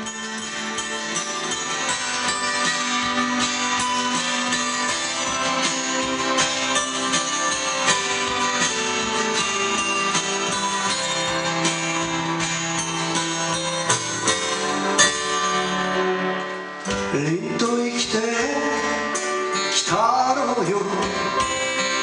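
Steel-string acoustic guitar played as the introduction to a ballad. A man's singing voice joins the guitar in the last few seconds.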